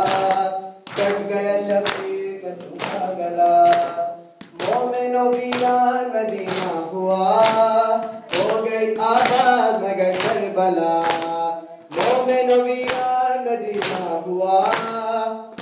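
Voices singing a noha, a Shia mourning lament, in unison, with a steady rhythm of sharp hand slaps as the mourners beat their chests in time (matam).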